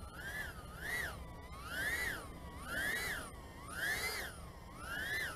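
Brushless motors and propellers of a FuriBee GT90 90 mm micro FPV quadcopter whining in flight. The pitch rises and falls about once a second as the motors speed up and slow down.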